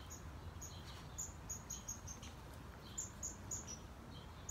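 Small birds chirping faintly: short, high chirps repeated at irregular intervals, over a low steady background rumble.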